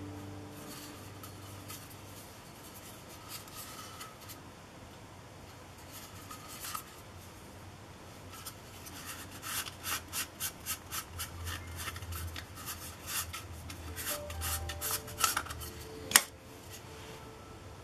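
Plastic petal lens hoods handled in the hands, plastic rubbing and scraping, with a quick run of sharp clicks in the middle and one loud click near the end.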